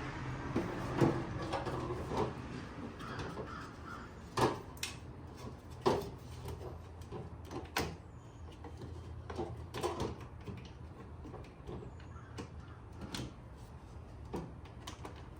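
Jump starter clamp lead being handled and connected, with scattered sharp plastic and metal clicks and knocks over a steady low hum.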